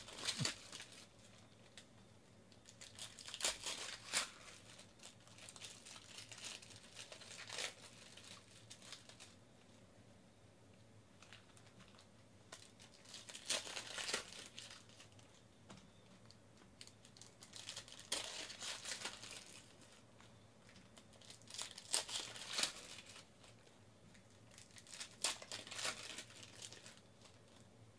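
Foil wrappers of 2014 Panini Elite Extra Edition baseball card packs crinkling and tearing as they are ripped open by hand, in short bursts every few seconds.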